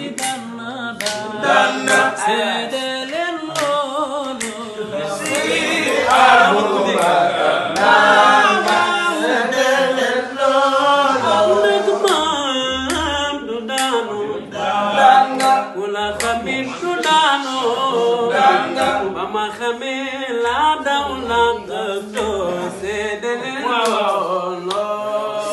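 Several men singing a Wolof song together without instruments, voices overlapping, with sharp hand claps scattered through it.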